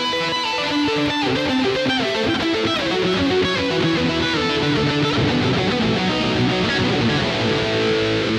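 Epiphone Les Paul Limited Edition Special I electric guitar with humbucker pickups, played through a Boss eBand JS-10 effects processor. A continuous run of notes changes pitch quickly at an even loudness.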